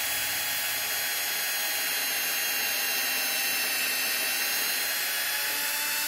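Milwaukee cordless drill running steadily with a constant-pitch motor whine, turning a self-centering hinge drill bit to bore a screw pilot hole into the wooden door edge through the hinge.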